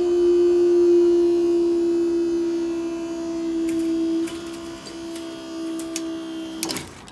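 Level crossing barrier machine's motor running with a steady hum as the barriers are raised. It cuts off near the end with a couple of mechanical clicks.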